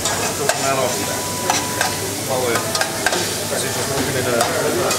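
Pieces of pork sizzling in a frying pan on a portable gas hob, with a few sharp clinks of a metal utensil against the pans as the food is stirred.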